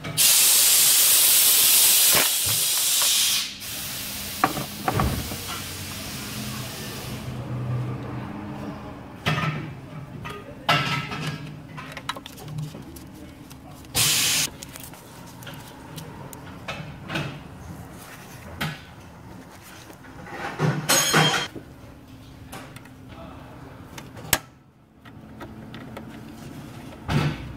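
Pneumatic air ratchet run in bursts on the alternator's fasteners: a loud burst of hissing air for a few seconds at the start, a weaker hiss trailing off, then short bursts about halfway, about three-quarters through and near the end, with light clicks and clinks of the tool between.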